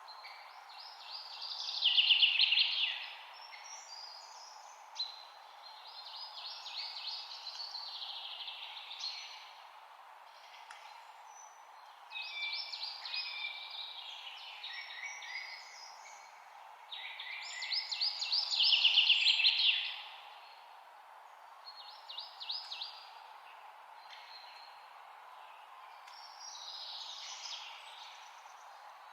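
A songbird singing a series of fast, trilled song phrases, each one to three seconds long and a few seconds apart, over a steady background hiss.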